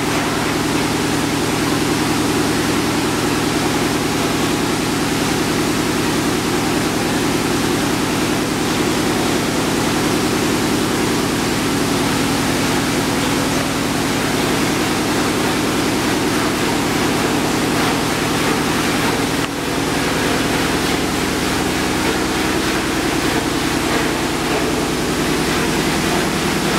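Steady workshop machinery running: a low hum under a loud, even rushing hiss, which dips briefly and shifts slightly in pitch about two-thirds of the way through.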